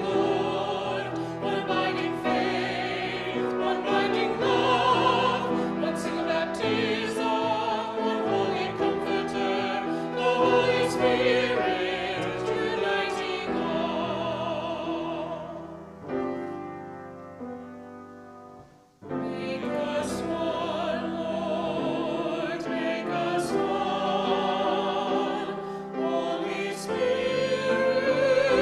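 Hymn sung with vibrato over piano accompaniment. About 16 s in the music fades to a brief silence, and the singing starts again about 19 s in.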